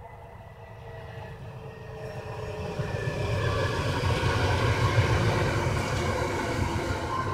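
A PESA Elf EN76 electric multiple unit passing close by, growing louder as it approaches and loudest about five seconds in: a low rumble of wheels on rail with a steady high whine that falls slightly in pitch.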